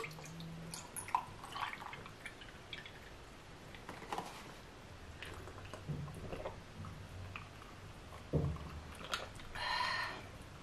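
A drink poured from a paper carton into a glass mug over ice, with small clicks of ice and glass, then sips and swallows from the glass. Near the end comes a soft knock and a short rattle of ice in the glass.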